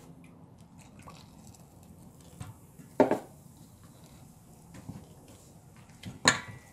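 Spatula stirring and scraping a thick beer batter of flour and egg in a stainless steel mixing bowl, with two sharp knocks of the utensil against the metal bowl, one about three seconds in and one near the end.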